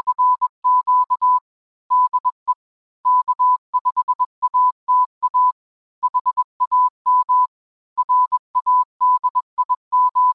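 Morse code: one steady beep of about 1 kHz keyed on and off in short and long elements, in groups separated by short pauses.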